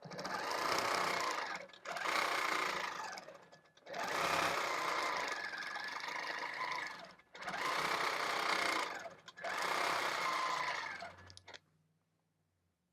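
Longarm quilting machine stitching in five runs separated by short pauses, then stopping a little before the end.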